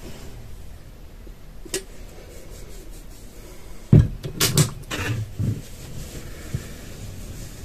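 A single sharp click, then about two seconds later a short cluster of knocks and clatters, the first the loudest: a plastic flip-top bottle of face cleanser being handled and set down on a hard surface.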